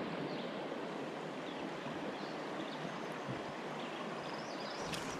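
Shallow river current flowing steadily over a gravel bottom: a soft, even rush of water.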